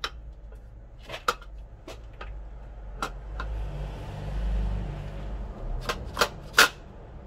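Metal clicks and knocks as a clutch pressure plate is worked into place over the clutch disc onto a dual-mass flywheel. There is a rustle of clothing brushing the microphone in the middle, and a few sharp metallic clacks near the end, the last the loudest.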